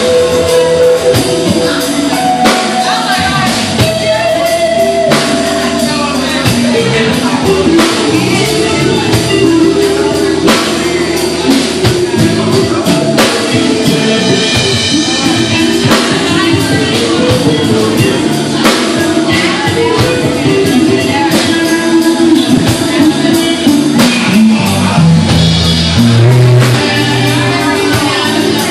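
Live rock band playing: an electric guitar through a Marshall amplifier over a drum kit, with singing.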